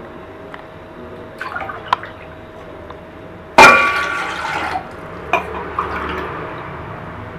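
Water poured from a cup into a stainless steel pot, splashing onto the pot's bottom. The loudest pour starts suddenly about three and a half seconds in and fades over about a second, with smaller splashes and knocks around it.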